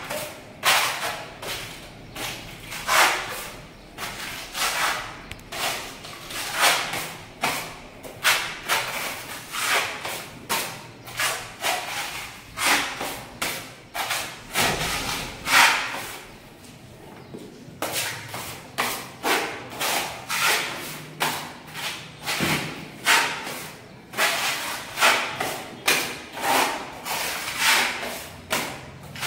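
8-inch putty blade spreading and scraping wall putty across a wall in repeated strokes, about one or two a second, with a short pause a little past halfway.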